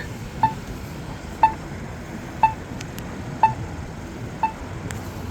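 Polara accessible pedestrian signal push button giving its locator tone: a short, sharp beep about once a second, five times. It is the tone that tells a blind pedestrian where the button is while the signal is at don't-walk.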